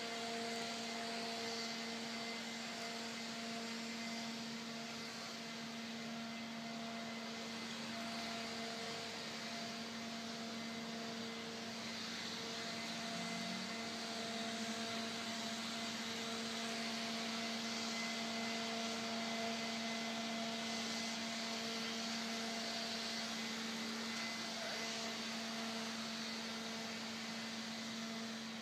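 A steady machine hum at one unchanging pitch over a constant background hiss.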